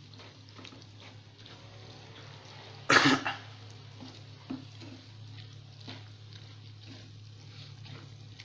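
Wooden spatula stirring thick macaroni in a creamy milk-and-cheese sauce in a nonstick frying pan, faint scraping over a steady low hum. A single loud cough about three seconds in.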